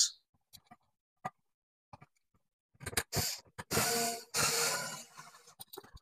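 Electrical wires and a light switch being pushed into a switch box: a few light clicks, then several short bursts of rustling and scraping about three to five seconds in.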